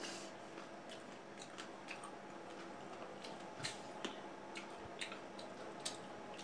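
Eating at a table: scattered faint crunches and clicks of cut fruit being chewed and fingers picking at a china plate, about eight in all, over a steady low hum.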